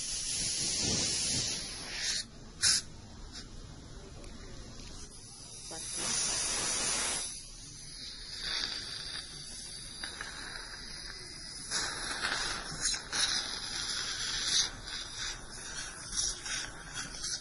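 Dental water syringe hissing as it sprays and rinses the teeth, in several bursts of different lengths, with a sharp click or two between them. Recorded close up in binaural sound.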